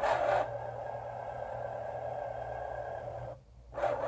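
Motorised magnetic carriage under the board of an Excalibur Phantom Force chess computer whirring as it drags the black queen across the board, from d8 to a5. It runs for about three seconds, stops for a moment, then starts again near the end.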